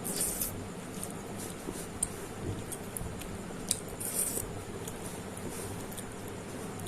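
Close-up eating sounds: chewing and mouth clicks. Short crisp noises come near the start and about four seconds in, with scattered small clicks between them.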